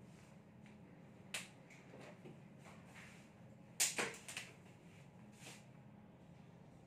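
A marker tapping and clicking against a whiteboard during writing: a few faint sharp clicks, the loudest a quick cluster about four seconds in, over a faint steady low hum.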